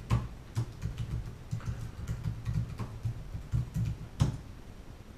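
Typing on a computer keyboard: a quick, irregular run of key clicks, with one louder keystroke about four seconds in before the typing stops.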